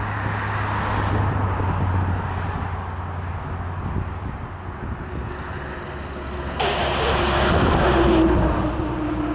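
A heavy engine runs steadily. About two-thirds of the way through, a scanner speaker lets through a short burst of radio hiss, an open transmission with no voice on it, lasting about a second and a half.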